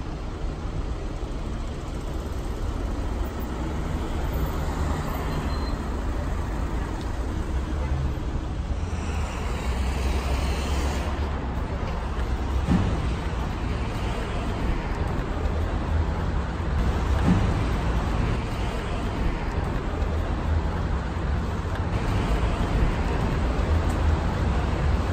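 City street traffic: a steady rumble of passing and idling cars, with the voices of people around in the background.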